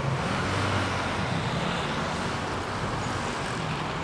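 Steady road traffic noise, with a continuous low engine rumble.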